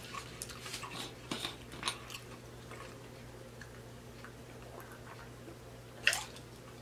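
Close-miked eating sounds: wet chewing and lip-smacking clicks for the first two seconds. This is followed by a quieter stretch and a single sharp wet mouth sound about six seconds in, as he drinks from a water bottle.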